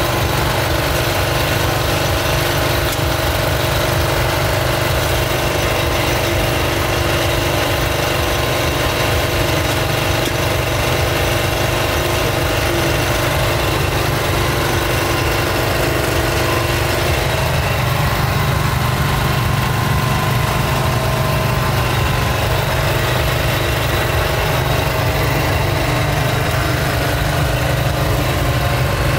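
A steady mechanical drone: a low rumble with a few held tones above it, running evenly without a break.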